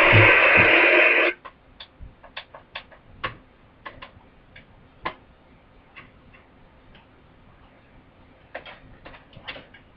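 Playback of a choir concert recording that cuts off abruptly about a second in, followed by scattered light clicks and taps.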